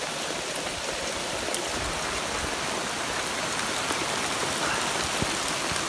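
Steady rush of rainwater pouring off a rock in a downpour, mixed with the hiss of heavy rain falling.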